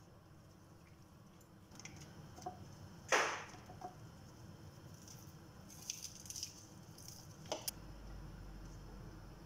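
Raw chicken pieces and sliced vegetables being handled and laid into a glass baking dish: soft squishes and rustles, with a sharp knock about three seconds in and a few lighter clicks and taps later.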